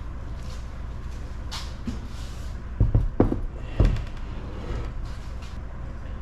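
Three heavy knocks of metal engine parts being handled, about half a second apart near the middle, over a steady low hum.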